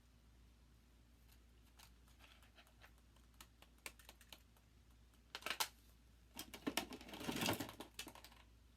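Small hard objects clicking and clattering as they are picked up and handled, faint at first, then a short clatter about five seconds in and a longer stretch of clattering near the end.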